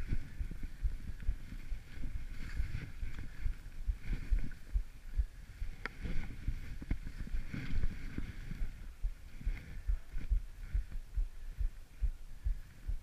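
Skis running over a snowy path, heard through the camera as a muffled, irregular low thumping and rumble.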